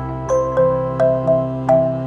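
Background music: a light tune of struck mallet-like notes, about three or four to the second, over a steady held chord.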